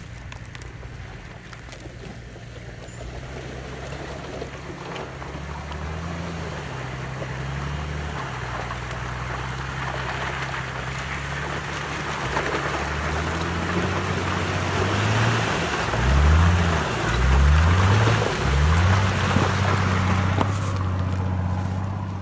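Nissan Patrol SUV engine running as it drives toward the camera through a shallow, ice-covered stream, growing louder, with water and ice splashing around it. The engine revs rise and fall several times in the last third, where it is loudest.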